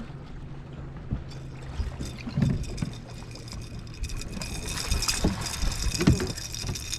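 Water splashing and knocking against a boat as a hooked catfish is brought in to be landed, with several short thumps and a splashy hiss that builds over the second half, over a steady low hum.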